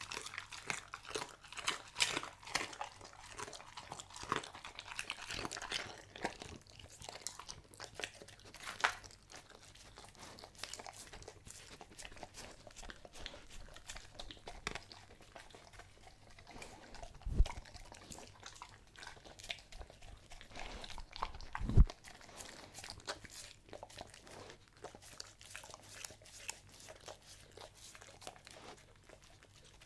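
German Shepherd eating from a wooden board close to the microphone: wet crunching and chewing, dense for the first several seconds, then sparser. Two low thumps about four seconds apart in the second half are the loudest sounds.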